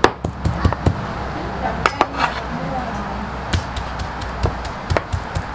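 Utensils clinking and scraping against a pan in quick, irregular strikes while beef and green beans are stir-fried, over a steady hiss.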